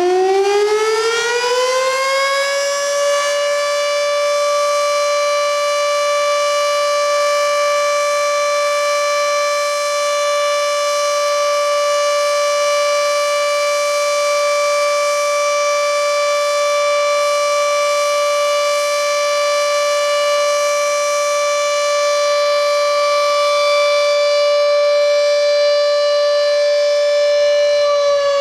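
Air raid siren rising in pitch over the first couple of seconds, then holding one loud, steady tone, and starting to wind down near the end.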